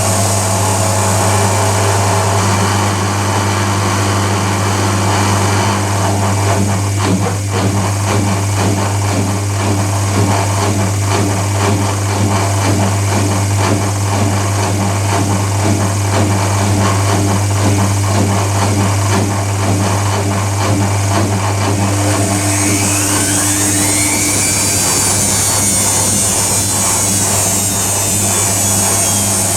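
Privileg Compakt 92 washing machine and AEG Lavatherm CE tumble dryer running together: a steady low motor hum, with a rhythmic churning through the middle. About three quarters of the way through, a motor whine rises and then falls away.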